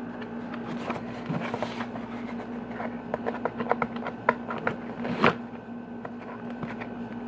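Tape being picked at and peeled from a plastic package: scattered clicks and crinkles, thickest from about three seconds, with one louder rip just after five seconds. A steady low hum runs underneath.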